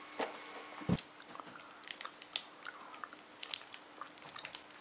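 Chewing of a sticky Curly Wurly caramel-and-chocolate bar: faint, irregular wet clicks and smacks of the mouth working the chewy caramel. A low thump about a second in.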